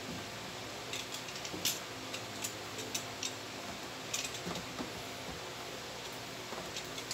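Cardboard graphics-card box being handled and turned over in gloved hands: scattered light clicks and taps at irregular intervals, over a faint steady hum.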